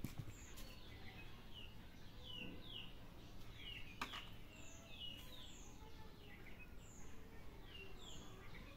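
Small birds chirping, short high falling chirps about one or two a second, faint. There is a single sharp click about four seconds in.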